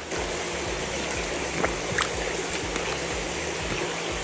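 Steady rush of running water in an alligator pool, like a trickling stream, with a couple of faint clicks in the middle.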